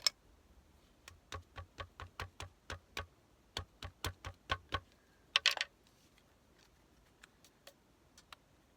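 A sharp click, then a quick run of light taps on a tabletop, three or four a second, followed by a short scraping rustle and a few faint clicks.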